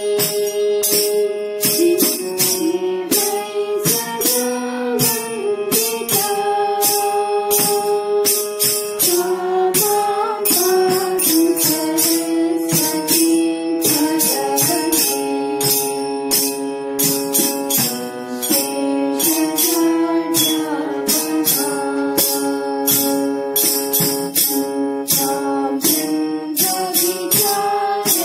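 A girl singing a song into a microphone, accompanied by an electronic keyboard holding sustained notes under the melody, with a steady jingling percussion beat.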